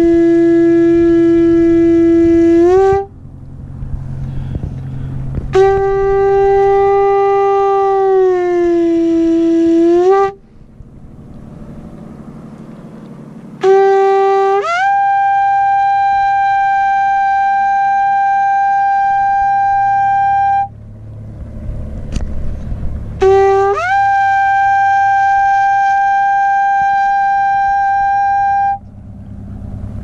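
Conch shell trumpet blown in four long blasts. The first two hold a low note that wavers and flips upward at the end; in the last two the note jumps after about a second to one an octave higher and is held there.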